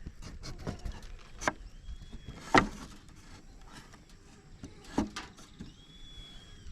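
Handling noise at a bee trap box: a string of knocks and scrapes as pieces of old comb are dropped and fitted into it, the loudest knock about two and a half seconds in.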